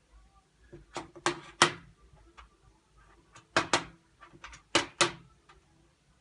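Sharp knocks in three quick groups of two or three, with short pauses between the groups.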